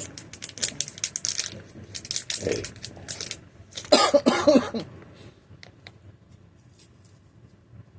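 Plastic Ziploc bag crinkling and rustling as it is handled, followed by a single cough about four seconds in, then a few light clicks.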